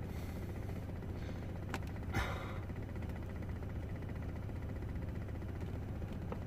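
2013 Fiat 500's engine idling, heard from inside the car as a steady low hum, with a couple of faint clicks about two seconds in.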